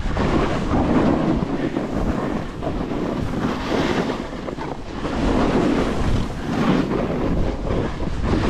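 Snowboard sliding and carving over snow, a hissing scrape that swells and eases with each turn, with wind buffeting the microphone.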